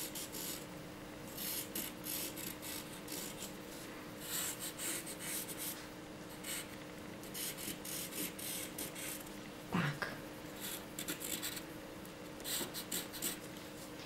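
Wooden pencil scratching across paper in quick, short back-and-forth strokes as palm fronds are sketched, over a faint steady hum. About ten seconds in comes a brief voice sound.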